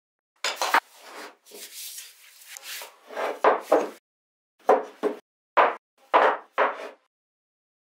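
Wooden blocks knocked and set down on a wooden workbench: about nine short, sharp knocks, with a stretch of wood sliding and rubbing on wood between about 1.5 and 3 seconds in.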